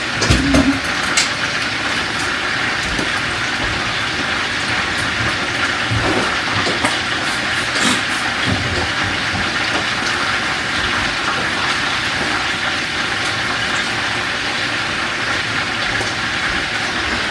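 Steady sizzling hiss of food cooking on the stovetop, with a few light crackles scattered through it.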